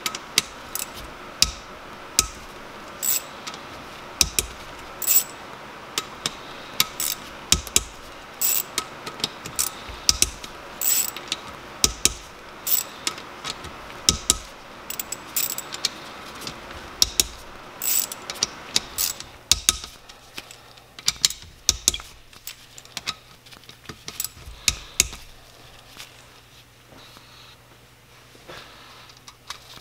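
Ratchet wrench clicking and small metal clinks as the cam cap bolts on a 2010 Yamaha YZ250F cylinder head are loosened. The sharp clicks come thick for about the first twenty seconds, then grow sparser.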